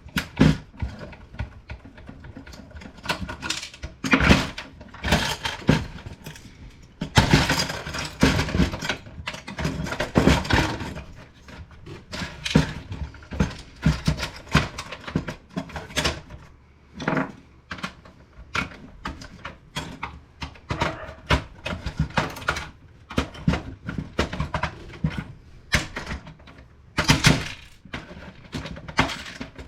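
Plastic parts of an HP Deskjet 2050 printer being pried, snapped apart and handled during dismantling: a long run of clicks, cracks and clattering knocks, busiest about four seconds in, again from about seven to eleven seconds, and near the end.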